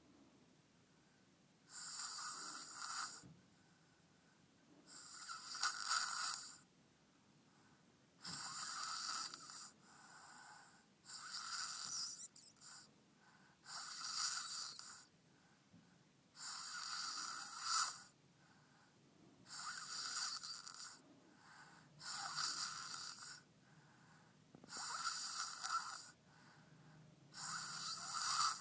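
A person in deep sleep snoring: about ten slow, even breaths, one every three seconds or so, each a hissy rasp.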